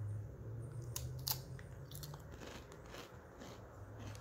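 Biting into a crunchy seasoned cracker chip and chewing it, with a few sharp crunches about a second in, the loudest first, then fainter crunching as the chewing goes on.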